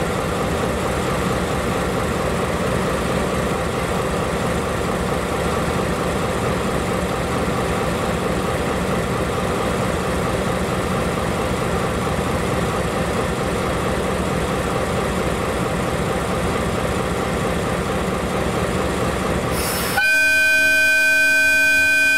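Diesel locomotive's engine running steadily, then its horn giving one long blast near the end.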